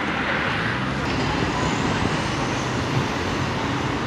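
Steady road traffic noise: vehicle engines running and tyres on a busy road.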